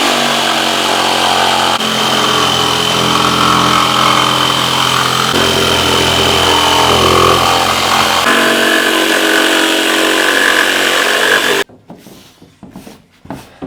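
Electric power tool running continuously under load while cutting, its motor pitch shifting a few times. It stops abruptly near the end, followed by a few light knocks.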